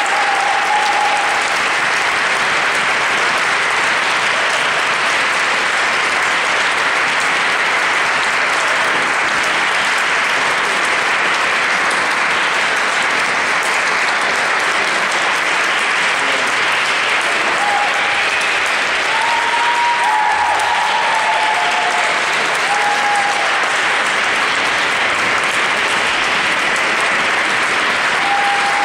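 Concert audience applauding steadily at the end of the performance, with a few brief high tones over the clapping about two-thirds through.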